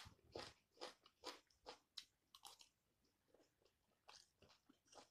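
Faint close-up chewing of a mouthful of raw red onion and fried rice: wet crunches about twice a second, thinning out in the middle and picking up again near the end.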